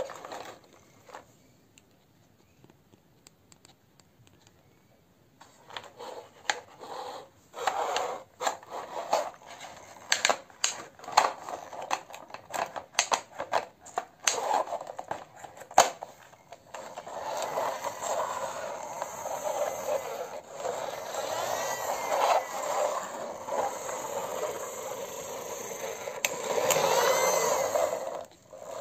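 Plastic toy fire ladder truck being handled and pushed on a hard surface. There is a string of sharp plastic clicks and knocks, then from about halfway a longer, steadier rolling and scraping sound.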